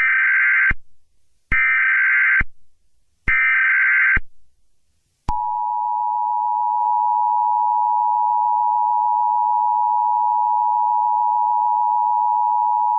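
Emergency Alert System tones: three short bursts of warbling digital SAME header data, then the steady two-tone EAS attention signal starting about five seconds in. They announce an emergency alert, here a tornado warning.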